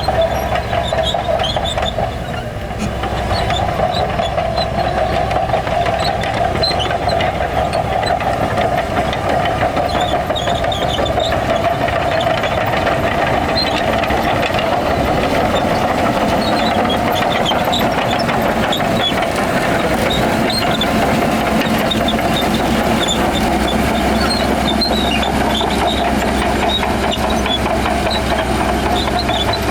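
Heavy diesel engine of earthmoving machinery running steadily, with a brief drop in level about two seconds in.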